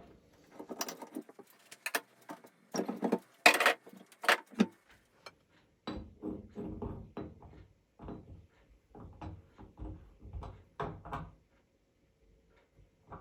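Metal tools and tap parts clinking, rattling and scraping as the tap is worked on by hand. There are sharp metallic clicks in the first few seconds, then duller knocks and scrapes.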